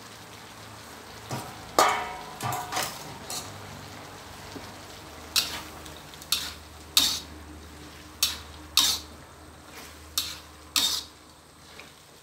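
Chicken giblets and long beans sizzling in a wok while a metal wok spatula scrapes and clanks against the pan. A sharp ringing metal clank comes about two seconds in, then a stroke every second or so.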